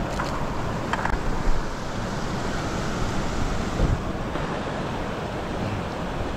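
Wind buffeting the camera microphone: a steady rumbling hiss, with a few light knocks about a second in and again near four seconds.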